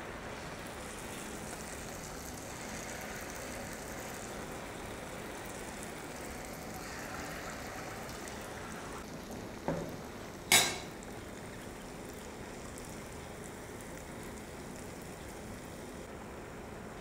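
Sweet wheat-flour batter fritters (gulgule) frying in hot oil in a kadhai, a steady sizzle and bubbling. Two sharp clicks about ten seconds in, the second the loudest.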